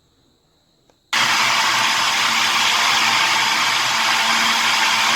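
Countertop blender switched on about a second in, its motor running steadily as it blends a liquid bread batter of milk, eggs, sugar and oil.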